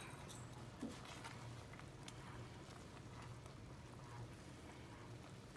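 Faint bubbling of a cream sauce simmering in a pot while a wooden spoon stirs it, over a low steady hum.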